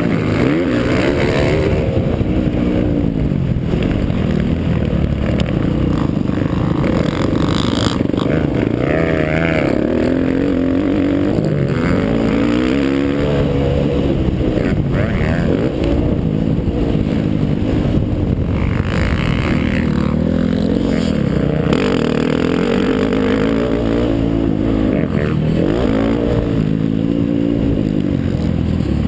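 Motocross dirt bike engine heard on board, revving up and dropping back over and over as the rider accelerates, shifts and backs off around the track.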